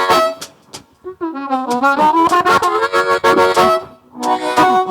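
Blues harmonica playing a fill phrase of bent, wavering notes with quick repeated attacks. It drops out briefly about a second in and again shortly before the end.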